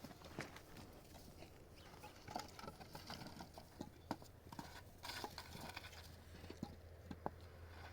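Faint, scattered light taps and knocks at irregular intervals over a low steady hum.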